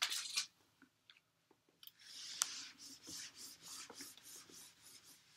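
Whiteboard eraser wiping a dry-erase board in quick back-and-forth strokes, about three a second, starting about two seconds in.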